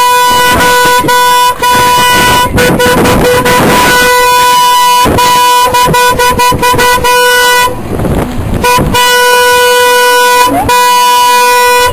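Car horn held down in a long, very loud blast on one steady note. It stops for about a second some eight seconds in, then sounds again and holds on.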